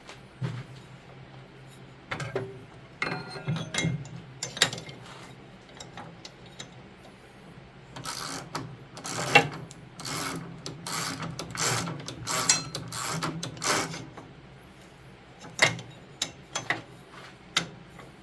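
Ratchet wrench with a half-inch deep well socket clicking in back-and-forth strokes as a snowblower drive adjustment bolt is loosened: a few scattered strokes at first, a long fast run of ratcheting in the middle, then a few single clicks near the end.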